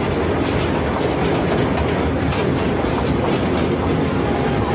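A ride-on toy train running steadily along its track, with a continuous rumble and rattle of the carriages and wheels.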